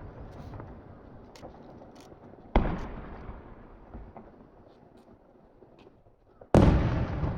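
Aerial firework shells bursting: a loud boom about two and a half seconds in and a louder one near the end, each trailing off in a long rumble, with faint scattered crackles between.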